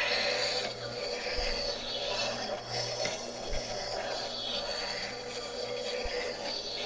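A woodturning gouge held in a sharpening jig being ground on the stone wheel of a slow-speed sharpening machine. It makes a gritty rasping hiss of steel on stone that swells and fades as the gouge is rolled across the wheel, over the steady hum of the motor.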